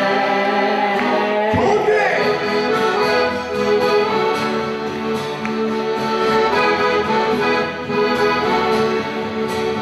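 Piano accordion playing a melody in sustained chords, with acoustic guitar strumming behind it, in an instrumental passage by a live folk band.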